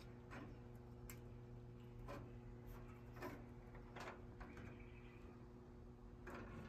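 Near silence: a faint steady low hum with about half a dozen soft, scattered ticks.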